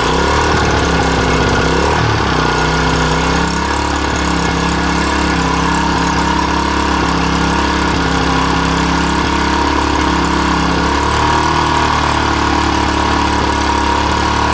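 Small 3.5 hp gasoline engine, just started, running steadily and driving a homemade stake-pointing machine.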